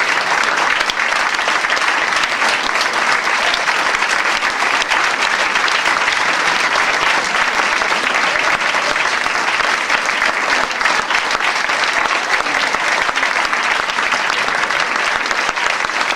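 Audience applauding: dense, steady clapping from many hands that keeps going without a break.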